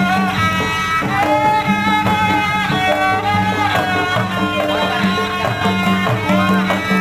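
Betawi ondel-ondel accompaniment music: a bowed fiddle carries a sliding melody over a steady beat of hand drums.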